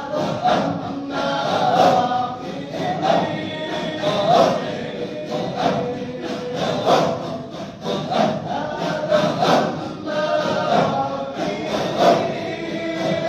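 A group of voices chanting together in unison, dhikr in a mosque, with a steady pulse about every second and a quarter.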